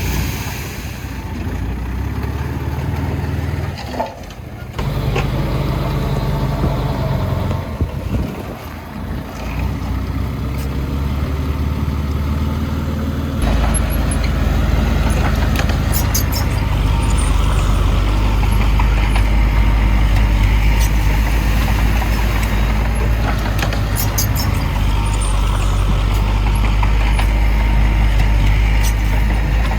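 Diesel engine of heavy earthmoving equipment running, getting louder and deeper about a third of the way in and staying there, with a few short high metallic clinks later on.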